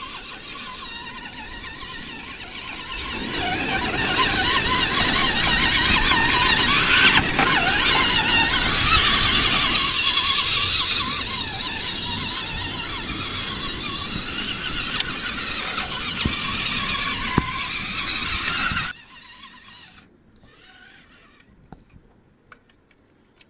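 Toy RC monster truck's small electric motor and plastic gearbox whining and squealing as it drives over rough, stony grass, the pitch wavering with the load. A lower rumble joins after about three seconds, and everything cuts off suddenly near the end.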